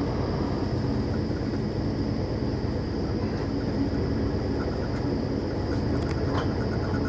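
Passenger train running, heard from inside the carriage: a steady low rumble of the wheels on the rails.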